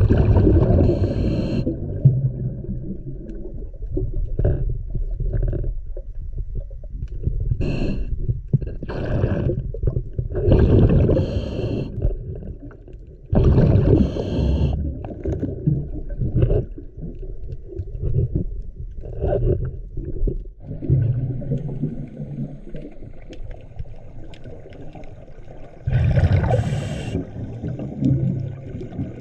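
Scuba diver breathing through a regulator underwater: a steady low rumble with bursts of bubbling exhaled air every few seconds.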